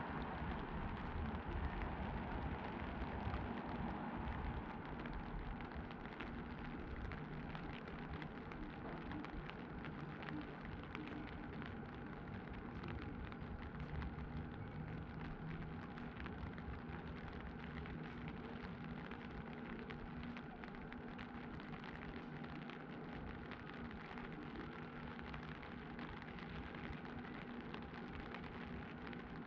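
Steady rain falling on a street, a dense patter of fine drops over an even hiss. A low rumble underneath eases off about four seconds in.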